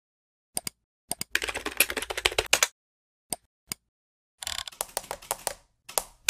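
Quick runs of light clicks and taps, like fast typing, in two bursts with single clicks between them.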